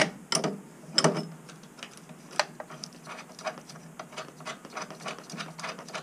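Hand tools working the fasteners on a gas water heater's main burner assembly: a few loud sharp clicks in the first couple of seconds, then quick runs of lighter ticking.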